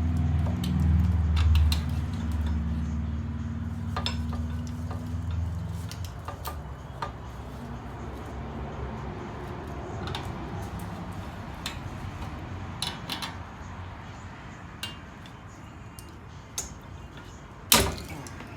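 Metal clinks and clicks of drum-brake hardware and hand tools being worked on a rear brake backing plate, with a low hum for the first few seconds and one loud metallic clank near the end.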